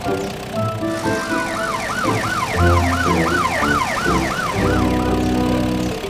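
Cartoon police car siren yelping: a fast wail rising and falling about three times a second, starting about a second in and fading out near the end, over background music.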